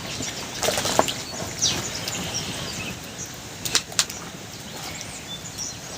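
A few short, sharp clicks and knocks, about five in all, over a steady outdoor background, with a few brief high chirps.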